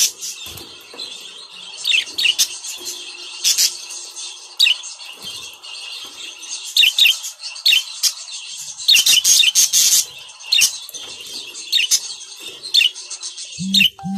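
Budgerigars chattering and warbling continuously, with many short repeated chirps, and a flutter of wings near the start as one flies across the cage.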